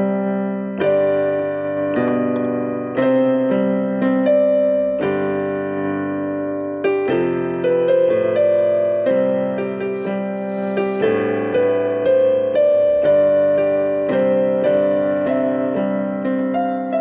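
Piano playing slow, sustained chords, a new chord struck every second or two.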